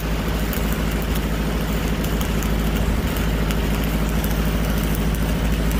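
Stick-welding arc crackling as a 3/32" 7016 low-hydrogen rod runs an uphill bead, over the steady running of a Lincoln Pipeliner 200D diesel engine-driven welder.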